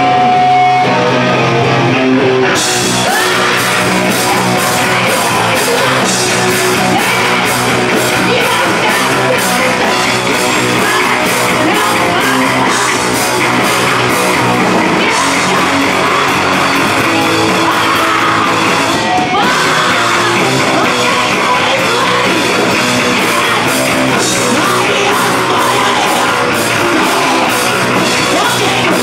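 Live rock band playing loud, with electric guitars, bass, drums and a woman singing and yelling. It opens on held guitar notes, and the drums and cymbals come in about two and a half seconds in.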